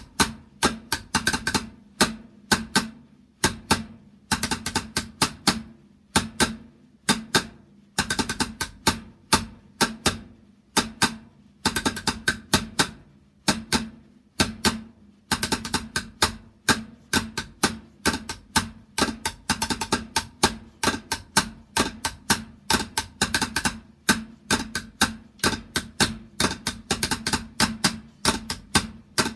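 Drum being played: fast, sharp strikes in flurries and short rolls with brief pauses between.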